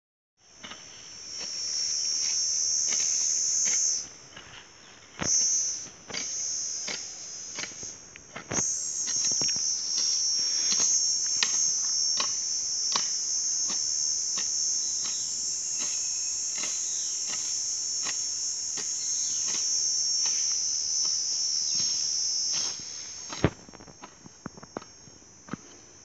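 An insect calls with a loud, steady high-pitched buzz that breaks off briefly twice and stops near the end. Under it, a hoe chops and scrapes in grassy soil, a little over once a second, with a few louder knocks.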